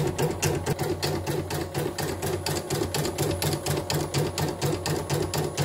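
CNY E900 portable embroidery machine stitching, its needle mechanism clattering in a quick, even rhythm. It runs evenly on a newly replaced drive motor.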